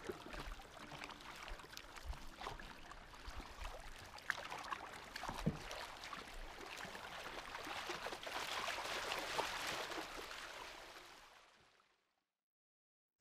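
River water rushing and splashing around a paddled wooden outrigger canoe, with occasional sharp knocks. It swells louder, then fades out to silence near the end.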